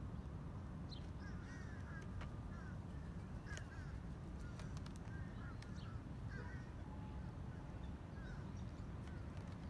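Crows' beaks pecking and tapping at plastic food containers, sharp clicks every second or so over a steady low rumble, with a few short bird calls.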